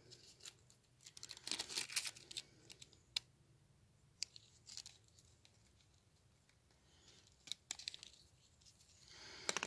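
Sheet of paper rustling and crinkling in short bursts, with a few sharp scissor snips, as a spent cactus flower is cut over the paper.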